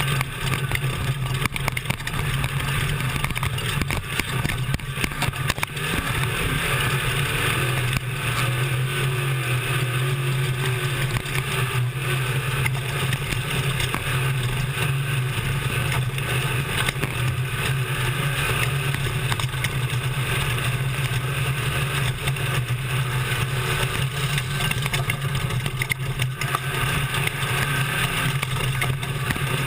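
Class 1450 desert race truck's engine running hard at a steady pitch, heard from inside the truck, with constant road and wind noise and frequent knocks and rattles as it jolts over rough desert ground.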